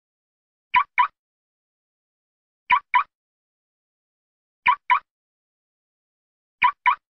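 Car locking with a remote, its lock-confirmation chirp sounding as a quick double chirp. The pair repeats four times, about every two seconds.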